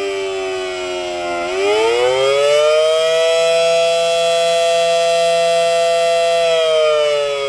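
Federal Signal Model 7AT outdoor warning siren wailing: its tone slides down, climbs over about a second, holds high for about four seconds, then starts falling again near the end. This rising-and-falling wail is the attack signal.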